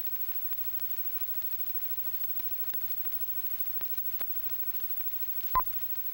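Old film optical soundtrack running over blank leader: a faint steady hiss with scattered clicks and crackles and a low hum. About five and a half seconds in, one short high beep sounds, the leader's sync 'two-pop'.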